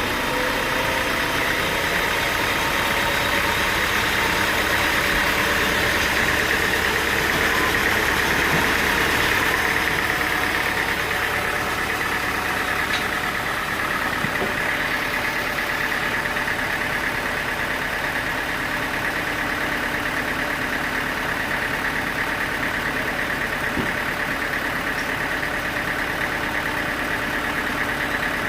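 Sawmill machinery running steadily, an engine-driven drone with a constant high whine, easing slightly after about ten seconds.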